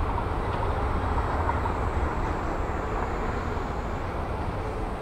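Airbus A340-600's four Rolls-Royce Trent 500 jet engines running at low taxi power as the airliner rolls slowly along the ground: a steady deep rumble and hiss, easing slightly toward the end.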